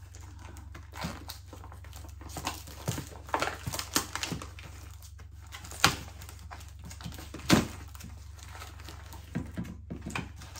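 Plastic pudding cups and their plastic wrapper crinkling and clicking as they are handled and pulled apart, with two louder sharp clacks about halfway through and again a second and a half later.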